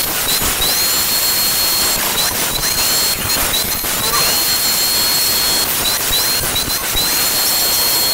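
Electric angle grinder with a thin cut-off disc cutting notches into thin galvanized light-steel channel, a loud, steady grinding hiss over the motor's high whine. The whine drops each time the disc bites into the steel and climbs back as it is lifted between cuts, several times over.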